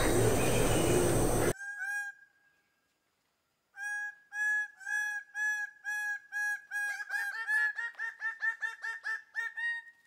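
Male greater birds of paradise giving their courtship display calls: a run of loud, repeated calls about two a second. From about seven seconds in more birds join, and the calls come faster and overlap. Before them, a steady forest hiss with insect whine is cut off about a second and a half in.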